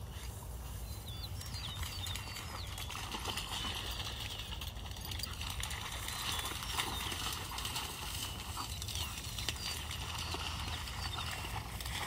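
Open-meadow ambience: wind rumbling on the microphone, small birds chirping over and over, and scattered light ticks and rustles.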